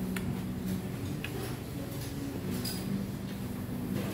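A person eating cold noodles, with a few faint clicks of chewing and lip-smacking over a steady low hum.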